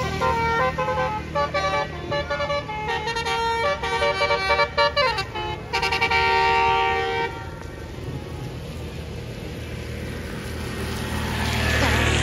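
A bus's telolet basuri horn, a set of electric air horns, playing a fast tune: several tones sound together and jump between notes in quick runs for about seven seconds, then stop. A steady rushing noise follows and grows louder near the end.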